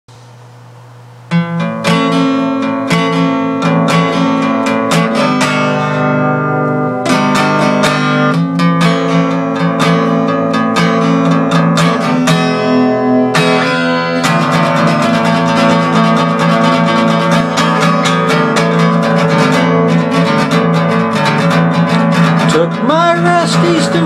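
Acoustic guitar strummed in a steady rhythm as a song's intro, starting about a second in.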